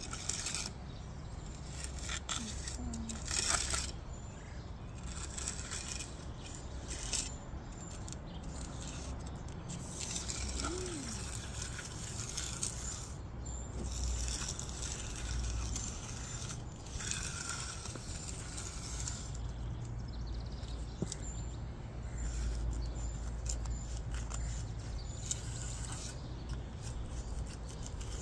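Steel hand edger scraping along the edge of a freshly finished concrete sidewalk slab in short, irregular strokes, over a low steady rumble.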